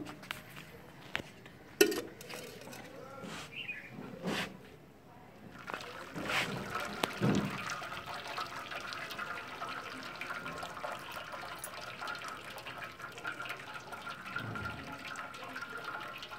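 Water from boiled vermicelli pouring and trickling through a plastic basket strainer into a steel bowl, with a few knocks of cookware and a sharp knock about two seconds in; from about six seconds the draining runs on as a steady trickle.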